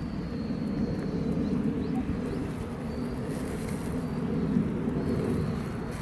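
Steady outdoor background noise: a low rumble, with a faint thin high tone and a few brief, faint chirps over it.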